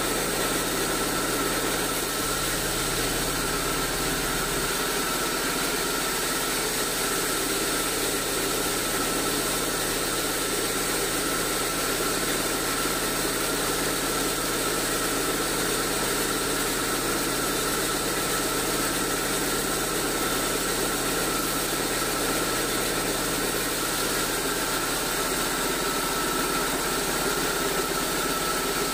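Large band sawmill running steadily, its blade ripping old acacia timber on the log carriage, with a thin high whine over the machine's even hum.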